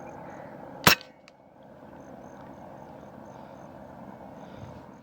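A single sharp crack from an Artemis P10 PCP air pistol firing one pellet, about a second in, with a faint tick about half a second later. Steady field background throughout.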